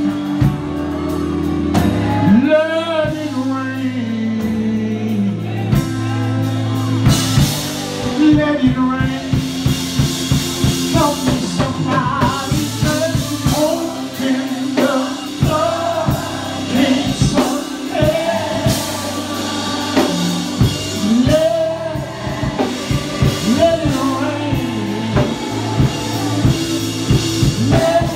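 Live gospel song with a singer over a band. Sustained low chords carry the first few seconds, then drums come in about seven seconds in with a steady beat under the singing.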